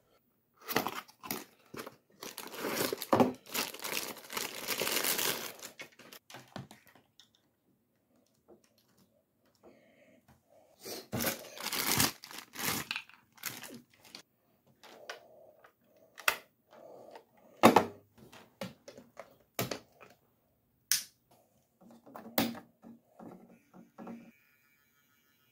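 Handling noises: plastic packaging crinkling and tearing in two scratchy stretches, then scattered sharp clicks and knocks as model railway track, power lead and controller are connected up.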